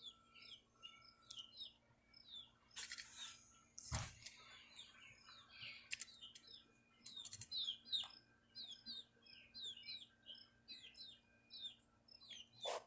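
Small birds chirping: a steady run of short, high, falling chirps, about two a second, with a single thump about four seconds in.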